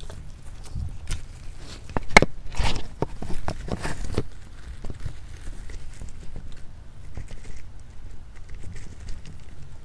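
Pet rats scrabbling and clambering over gourds, pumpkins and artificial grass close to a microphone: many small ticks and scuffs of claws. About two to four seconds in comes a cluster of louder knocks as a small hat and a ghost figurine are knocked over.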